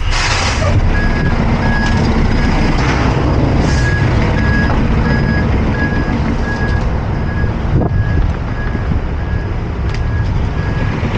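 International roll-off truck's warning beeper beeping steadily about twice a second over the diesel engine running. A short burst of air hiss comes right at the start.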